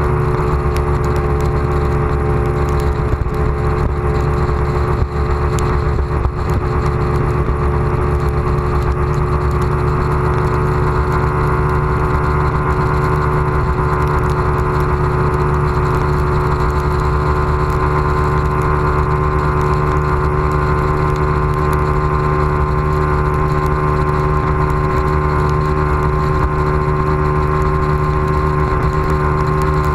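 Bass boat's outboard motor running steadily at planing speed, with a dense low rush of wind and water under it.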